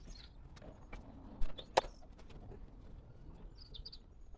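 Plastic replacement wing-mirror casing of a Tesla Model 3 being pressed onto the mirror housing: two sharp clicks less than half a second apart, about a second and a half in, as its clips snap into place. Birds chirp faintly near the end.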